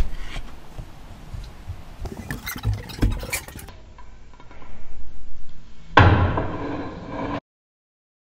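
Handling noise as a plate of grilled fish is carried and set out: scattered light clicks and knocks, then a sudden heavier thump about six seconds in that fades out. The sound cuts off to silence near the end.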